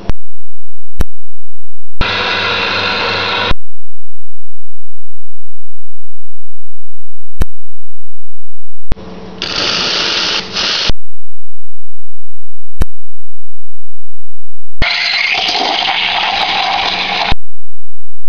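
A loud steady electronic tone fills most of the stretch, broken three times by short bursts of hissing noise from an espresso machine's steam wand frothing milk in a steel pitcher. There are sharp clicks between the bursts.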